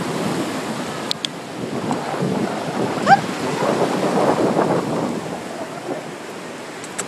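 Shallow surf washing up over sand, the rush of foam swelling in the middle, with wind buffeting the microphone. A short rising squeak about three seconds in.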